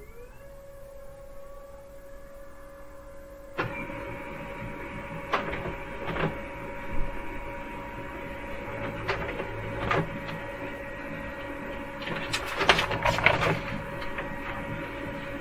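Samsung ML-1630 laser printer running a print job. Its mechanism starts up suddenly about three and a half seconds in and runs steadily, with scattered clicks and a burst of clattering near the end as the page goes through.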